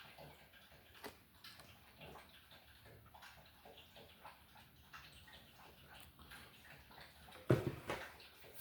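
Faint clicks and rustling from diecast toy cars in their blister-card packaging being handled, with one louder thump about seven and a half seconds in.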